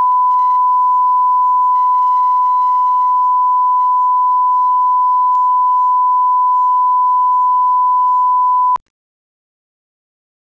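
Broadcast line-up tone: a steady, single-pitch reference test tone that plays with colour bars at the head of a broadcast tape to set audio levels. It stops abruptly almost nine seconds in.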